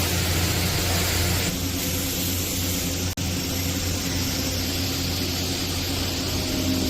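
TIG welding arc on stainless steel pipe: a steady hiss over a low hum, broken for an instant about three seconds in.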